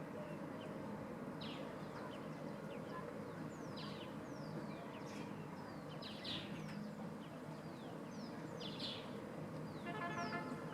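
Small birds chirping in the background: many short, quick, falling chirps over a steady low outdoor noise, with a brief buzzy call near the end.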